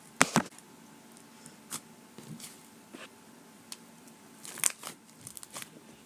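Hands squishing and poking a clay slime mixed with foam beads, giving irregular sharp pops and crackles, the loudest just after the start and again about four and a half seconds in.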